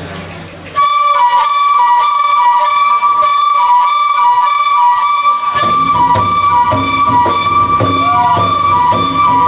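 Bihu dance music: a wind instrument enters under a second in with a long held high note and a flowing melody beneath it, and drums and percussion join in about five and a half seconds in.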